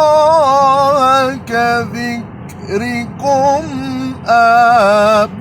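A man reciting the Quran in the melodic tajwid style, unaccompanied. He draws out long held notes with wavering ornaments on each word, with short pauses for breath between phrases.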